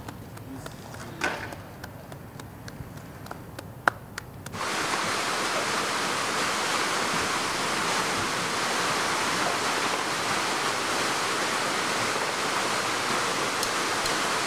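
Water of a large sculpted fountain cascading into its basin: a steady rushing that starts abruptly about four and a half seconds in. Before it, a quiet stretch with a couple of sharp clicks.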